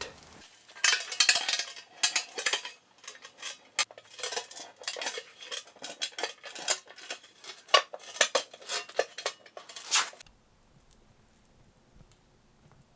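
Ratchet strap being cranked tight around a rolled sheet-steel cylinder to pull its edges together: repeated bursts of metallic clicking and clacking that stop about ten seconds in.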